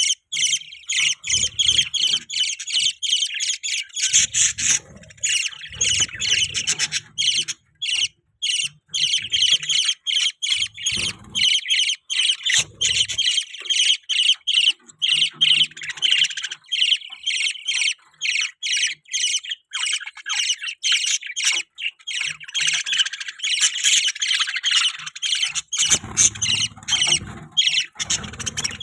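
Budgerigars chirping and squawking in a rapid, almost continuous stream of short high calls, with a few brief low bumps underneath.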